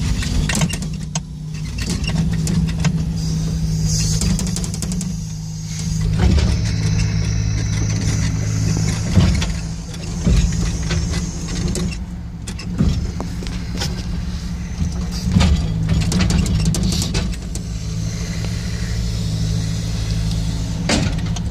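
Engine running steadily while it drives a hydraulic timber loader crane, with scattered knocks and clatter from the crane and grapple as they move.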